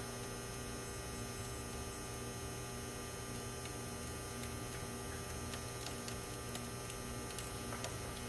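Steady electrical hum with a few faint ticks.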